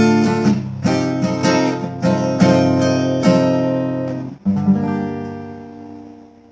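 Acoustic guitar strummed in a steady rhythm, then a final chord struck about four and a half seconds in that rings out and fades away, closing the song.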